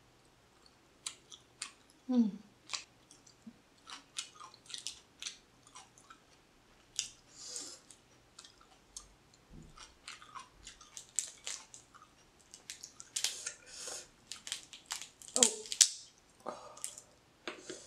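Close-miked chewing and wet mouth sounds, mixed with the crackle and snap of cooked blue crab shell being picked and pulled apart by hand. A short low vocal sound, falling in pitch, comes about two seconds in.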